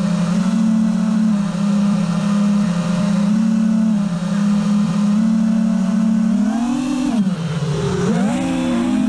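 FPV racing quadcopter's brushless motors (Emax 2207 2400 KV) whining steadily in fast forward flight. About seven seconds in, the pitch drops as the throttle is cut, then climbs again as it is punched back up through a flip or dive.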